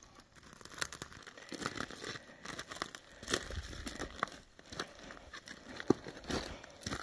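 Footsteps crunching and scraping on loose rocky ground while picking a way down a steep slope, in an irregular series of short crunches.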